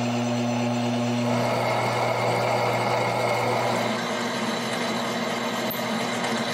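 Homemade milling machine's spindle running with a 9.5 mm twist drill boring into a metal block: a steady low hum under a gritty cutting noise. The hum fades about a second and a half in and again about four seconds in, leaving mostly the cutting noise.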